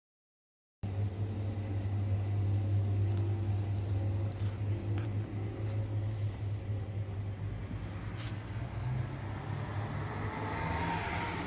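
Digital silence for about the first second, then the steady low hum of a motor vehicle's engine running close by. A rushing traffic sound swells near the end.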